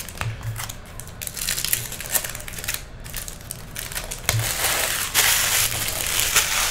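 Foil trading-card pack wrappers from 2017 Topps Chrome crinkling and crackling as the packs are handled and opened. The crinkling grows louder and denser about four seconds in.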